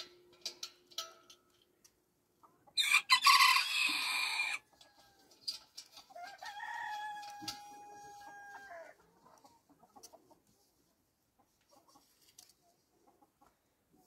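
Farmyard chickens: a loud, harsh burst of sound about three seconds in, lasting under two seconds, then a rooster's long, steady crow. After that, only faint scattered clucks.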